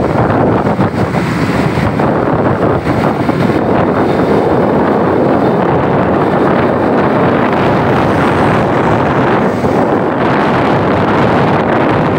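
Loud, steady wind noise buffeting the microphone of a camera moving along a busy road, with traffic noise underneath.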